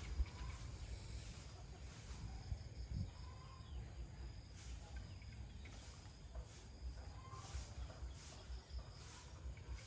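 Chickens clucking softly and intermittently over a constant low rumble.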